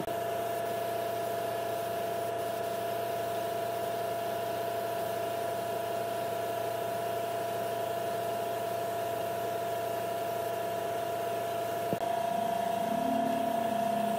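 A power tool's electric motor running steadily at constant speed, a steady whine. Music comes in near the end.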